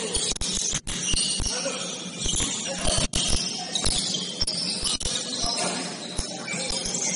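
Basketball game court noise: irregular thumps of the ball bouncing and feet on the court under a dense, hissy clatter of gym sound. The audio cuts out briefly twice.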